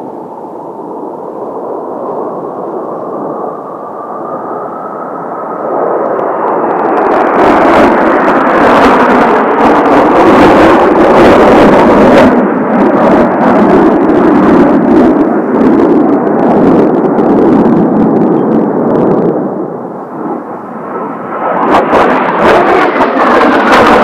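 Kawasaki T-4 jet trainers and their twin turbofans passing low overhead. The jet noise builds with a rising whine and is loud and crackling from about six seconds in. It dips briefly near twenty seconds, then another jet comes in loud near the end.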